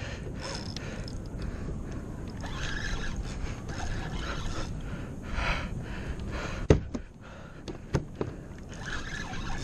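Steady wind and water noise around a fishing kayak on open sea, with the angler breathing hard while fighting a fish on a bent rod. A few sharp knocks come about two-thirds of the way through.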